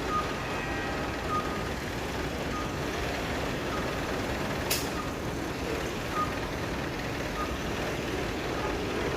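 A vehicle's reversing alarm beeping about once every second and a bit, over a steady rumble of engines and traffic, with one sharp click about halfway through.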